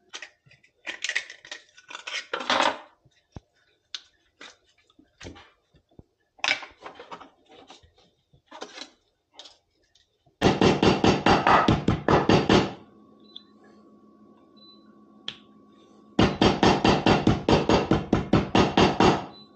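Ormers (abalone) being tenderised with rapid, even blows through a tea towel on a wooden board, about five blows a second. The blows come in two runs, one about ten seconds in and another near the end. Before that, irregular clacks and knocks of the shells as they are cleaned in a sink.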